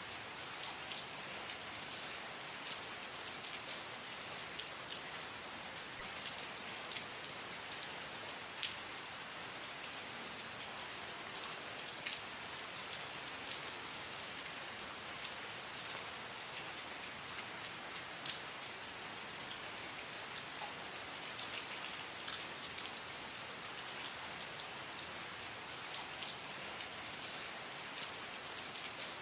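Steady rain falling and pattering on surfaces, an even hiss dotted with many small drop ticks.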